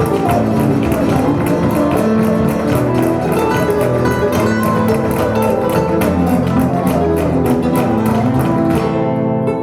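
Flamenco-style acoustic guitar music with fast rhythmic strumming, played back through a pair of Focal Aria 906 bookshelf speakers. About nine seconds in the strumming stops, leaving softer plucked notes.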